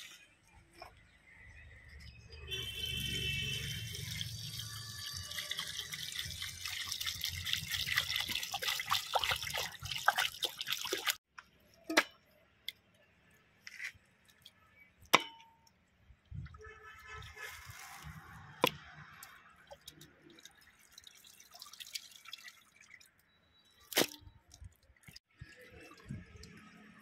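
Water poured from a large plastic water can into a steel bowl, a long splashing run that stops suddenly, followed by scattered clicks and light splashes as raw meat is rinsed by hand in the water.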